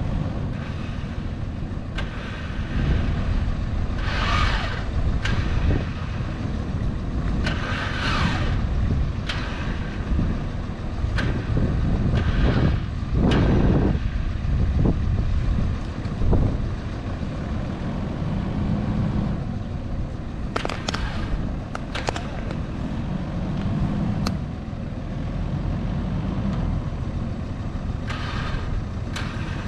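Four-wheel-drive vehicle's engine running steadily in low gear, a continuous low rumble with scattered clicks and rattles and a few short hissy bursts; the rumble swells briefly about 13 seconds in.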